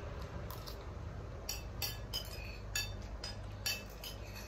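Metal spoons and forks clinking and tapping against ceramic plates while eating: about six sharp, ringing clinks, starting about a second and a half in.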